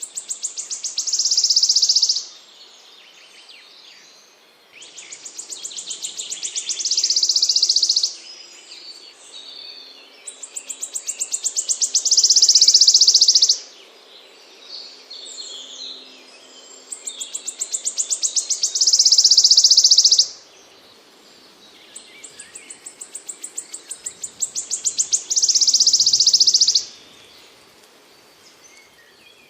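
A small songbird singing the same phrase five times, about every six and a half seconds: a run of quick, high notes that speeds up and grows louder, ending in a dense, high trill.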